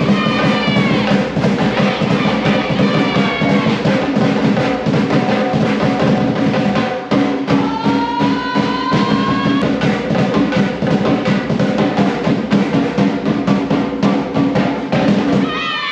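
Loud, drum-driven music with fast, dense drumming over a steady low tone, accompanying a cultural dance performance.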